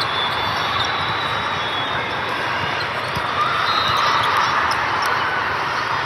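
Indoor volleyball match: a ball being bounced and hit in a gym over a steady hubbub of players and spectators, with a few short high squeaks.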